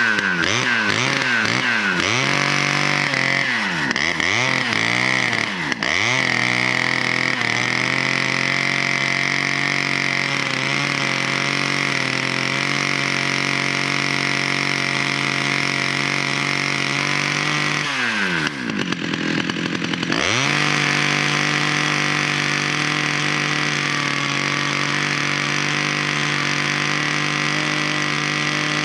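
Two-stroke 111 cc chainsaw engine driving a cable winch, revved up and down several times, then held at high revs under load as the winch drags a tree stump along the ground. About two-thirds of the way through the revs drop briefly and climb straight back up.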